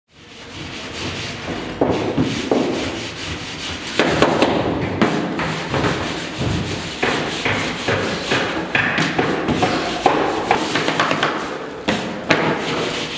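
Wooden rolling pin rolling out balls of dough on a floured table: a continuous run of rubbing strokes, broken by knocks of the pin against the table.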